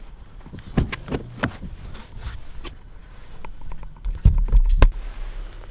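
A person climbing out of a car through its open door: scattered clicks and knocks of handling and movement, then a loud low rumble on the microphone from about four seconds in, with one sharp knock shortly after.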